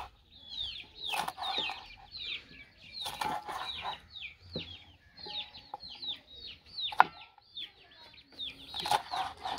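Chicks peeping: many short, high, downward-sliding peeps, several a second, throughout. A few sharp knocks of a knife on a cutting board, the loudest about seven seconds in, as green chillies are sliced.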